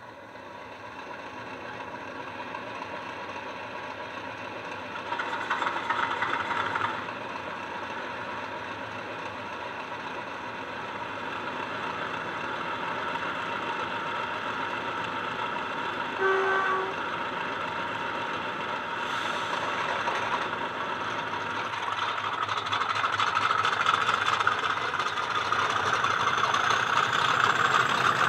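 Recorded Class 50 diesel sound from the DCC sound decoders of two model locomotives, played through small speakers. The English Electric engine sound idles and slowly builds, with a louder spell a few seconds in and a brief horn toot about 16 seconds in. It is loudest near the end as the locos power up and move off.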